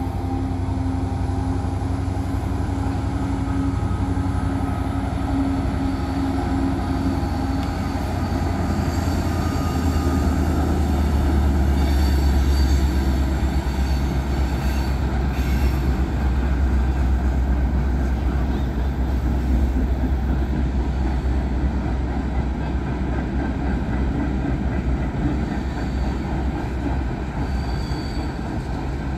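Norfolk Southern manifest freight train rolling past, a continuous low rumble of cars on the rails that grows heavier about a third of the way in. A few faint, high wheel squeals come near the middle and again near the end.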